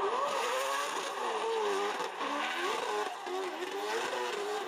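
Drift car's engine revving up and down over and over as the car slides through a corner, over a steady hiss of noise.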